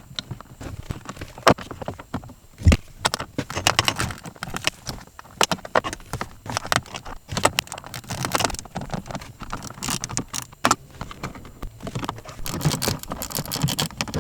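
Irregular clicks, taps and rattles of a replacement blower motor resistor and its fittings being handled and seated in its opening in the HVAC case, with one heavier knock about three seconds in.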